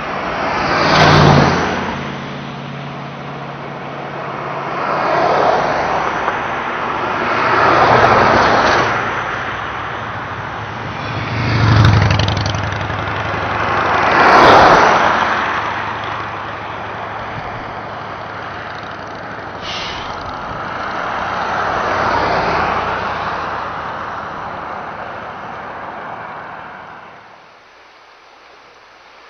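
Cars and trucks passing one after another on a two-lane highway, about six passes, each a swell of tyre and engine noise that builds and fades over a couple of seconds; two of them carry a deeper engine hum. Near the end this gives way to a fainter steady rush of river water.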